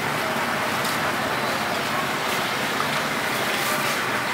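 Steady street noise: motor traffic running with indistinct voices mixed in.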